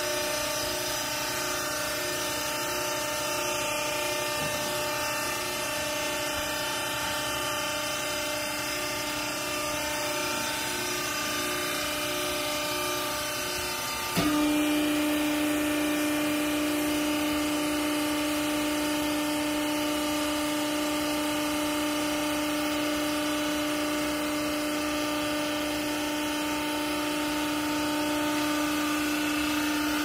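Hydraulic power unit of a vertical clothes baler running with a steady hum. About halfway through there is a sharp click and the hum turns louder and lower as the press plate starts its stroke down onto the clothes.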